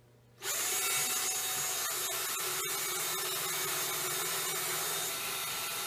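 Red cordless drill driving screws into the wooden frame of a table, starting about half a second in and running steadily, with a momentary dip partway through.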